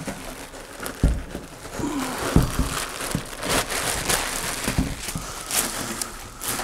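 Clear plastic wrapping crinkling and rustling as a packaged resin 3D printer is handled and unwrapped, with a few dull knocks as the machine is shifted on the table.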